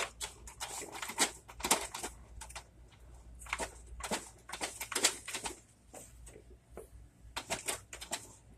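Irregular clicks, taps and rustles of paper and plastic printer parts being handled while a paper roll is threaded into a KIP 3100 printer.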